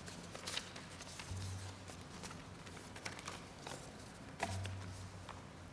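Quiet room tone of a large assembly chamber during a pause, with faint scattered clicks and rustles. A short low hum comes twice, about a second in and again near the end.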